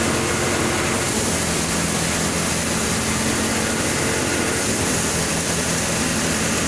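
Power-driven drum paddy thresher running steadily while threshing rice paddy: a constant mechanical drone and hum under a rushing noise of straw and chaff being blown out of the machine.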